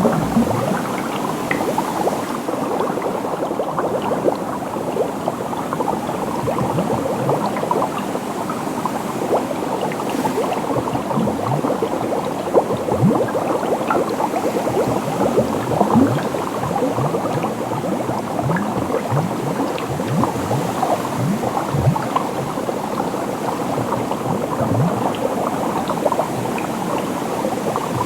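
Water bubbling steadily: a dense stream of small bubbles, each giving a short blip that rises in pitch.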